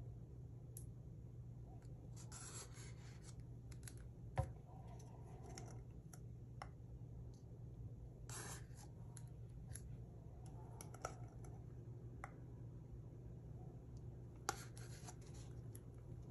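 Faint handling sounds of small plastic cups being moved and set down on a wooden cutting board: soft scrapes and rustles with a few light taps, over a low steady hum.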